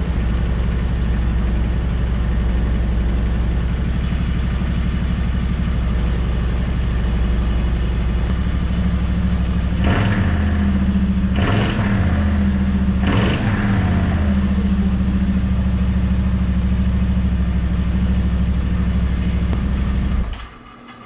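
Yamaha Wolverine X4's rebuilt parallel-twin engine running on its first start after flood damage, idling with three quick revs about halfway through, then shut off near the end.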